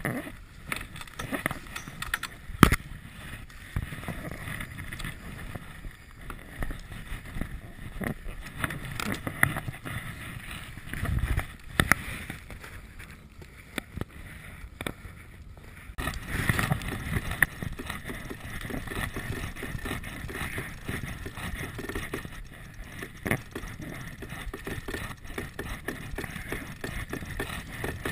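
Ropes and sail cloth being handled on a small sailboat's deck: rustling and scattered knocks against the deck and rail over steady wind and water noise, with one sharp knock about three seconds in.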